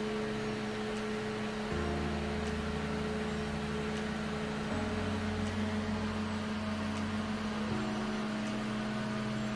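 Small handheld battery-powered fan running, a steady whirring hum whose low tone shifts a few times, at about two, five and eight seconds in.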